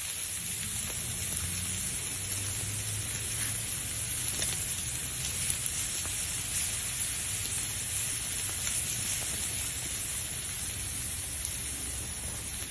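Steak and meat pieces sizzling over hot coals: a steady hiss with a few faint pops.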